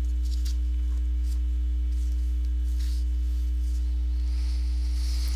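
Steady low electrical hum with fainter, higher steady tones over it, unchanging throughout.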